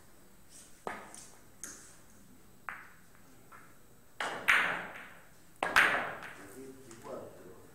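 Billiard shot on a carom table: sharp clicks of the cue tip and the ivory-hard balls striking one another, with two loud knocks that ring briefly about four and a half and six seconds in, after a few faint taps.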